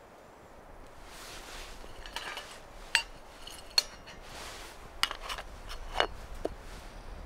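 A small metal kettle being handled over a wood-burning camp stove: several short, sharp metal clinks from its lid and handle, the loudest about three and four seconds in, with soft rustling between.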